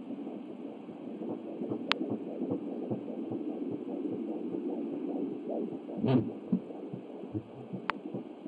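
Fetal heartbeat picked up by an Angel Sounds home doppler: a rapid, pulsing swish over static, which the mother suspects may be two heartbeats. Two sharp clicks come about two seconds in and near the end, and a louder rubbing noise about six seconds in.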